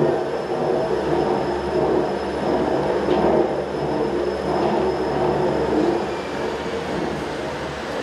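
Reichenbachfall-Bahn cable funicular in motion: a steady mechanical running noise with a low hum and a faint thin high whine.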